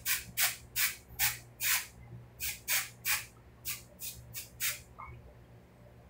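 Aerosol spray can being sprayed in quick short bursts, a dozen or so hisses at about two or three a second, stopping near the end.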